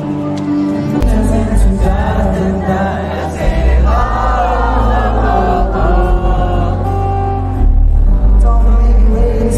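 Loud live concert music: a heavy bass comes in about a second in, under many voices singing together.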